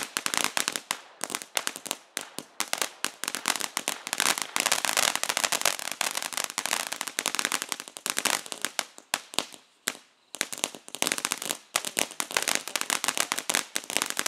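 Crackling ground fountain firework spraying sparks, its crackling stars going off in a dense stream of rapid snapping pops, with a brief lull about ten seconds in before the crackling picks up again.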